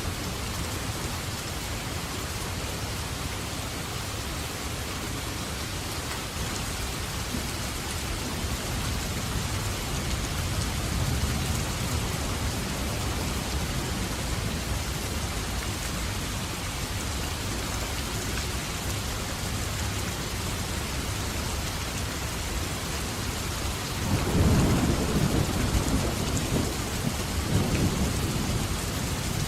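Steady heavy rain falling, with a low rumble of thunder swelling up about four seconds before the end.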